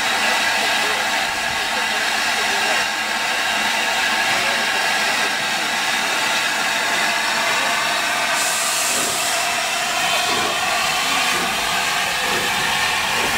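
LNER A4 Pacific steam locomotive 60009 standing and letting off steam in a loud, steady hiss. About eight seconds in, a sharper, higher hiss joins in.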